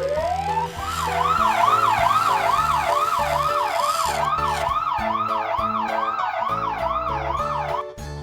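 Cartoon emergency-vehicle siren: a short rising sweep, then a fast up-and-down wail of about two cycles a second that cuts off near the end, over background music.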